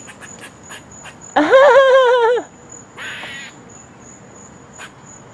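An animal call: one loud, drawn-out call of about a second with a wavering pitch, then a shorter, harsher call about a second later.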